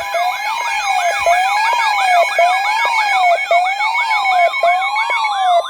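Several electronic sirens sounding at once. A slow up-and-down wail repeats about once a second under a faster yelp of about three sweeps a second, with steady high tones above.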